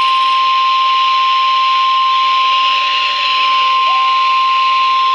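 Emergency Alert System single-tone attention signal: one steady high tone held without a break over radio hiss. It is the alert that announces the National Weather Service severe thunderstorm warning read out right after it.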